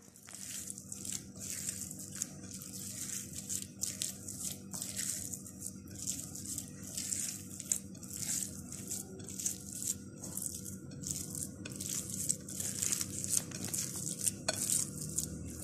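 Hands kneading and squeezing raw minced lamb and beef: repeated wet squelches, about one or two a second.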